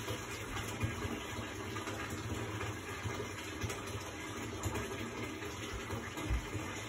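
Steady rushing background noise, with a few soft low thumps.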